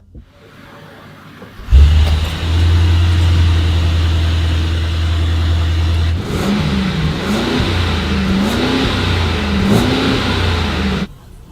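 Mercedes-Maybach GLS 600's twin-turbo V8 engine: it comes in suddenly and loudly about two seconds in and settles to a steady idle, then is revved in about four short rising-and-falling blips in the second half before the sound cuts off.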